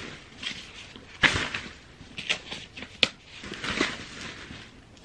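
Plastic trash bag rustling while papers and small items are handled and dropped into it, in irregular bursts with a couple of sharp clicks and taps.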